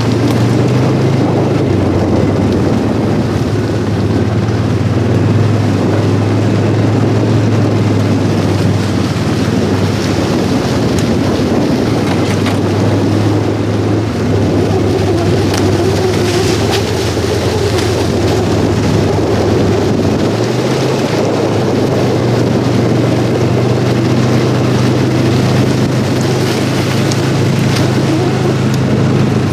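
A vehicle driving, a steady drone of engine and road noise with a low hum, which shifts about two-thirds of the way through.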